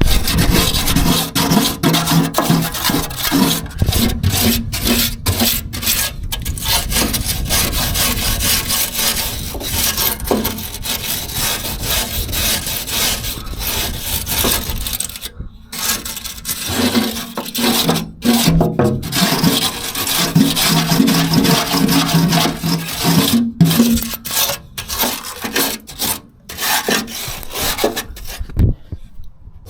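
Wire brush scrubbing the rusty, freshly welded steel inside a van's wheel arch: a steady scraping, broken by short pauses between strokes.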